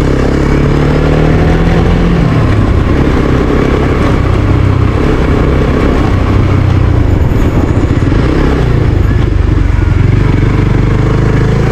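Suzuki GSX-S125's single-cylinder 125 cc engine running as the bike rides over cobblestones, its pitch rising for about two seconds and then dropping, then varying with the throttle.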